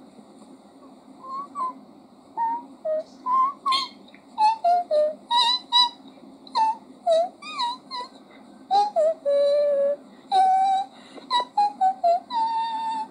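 A long string of short, high-pitched whimpers and squeals, each rising or falling in pitch, coming thick and fast from about two seconds in, over a steady low hum.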